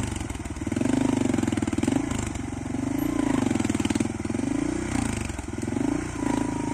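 Trials motorcycle engine revved in short repeated bursts, rising and falling about four times, as the rider picks a way up a rocky slope.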